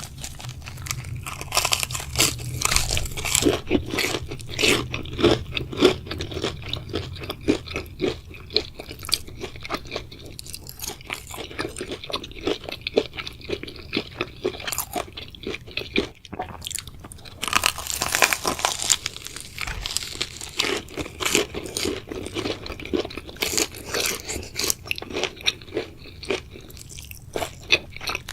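A person biting and chewing crunchy food close to the microphone: dense, sharp crunches with louder bursts of bites every several seconds.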